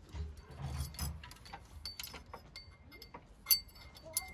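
Light metallic clicks and clinks of a double-row timing chain being worked onto the sprockets of a Nissan YD25 diesel engine, with a few dull bumps in the first second and one louder click about three and a half seconds in.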